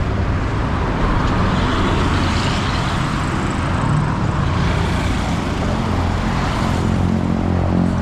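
Road traffic: motor vehicle engines running steadily with road noise, a continuous low hum.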